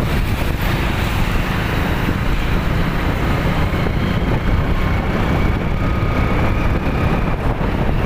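Steady wind buffeting the microphone over the road and engine noise of a moving vehicle.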